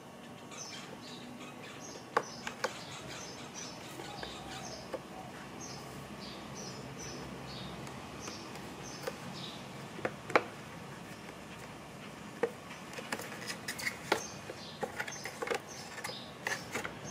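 Scattered sharp clicks and taps of hard plastic as a side-mirror base plate and housing are handled and pressed together, the loudest about ten seconds in and more of them near the end. A small bird chirps over and over in the background.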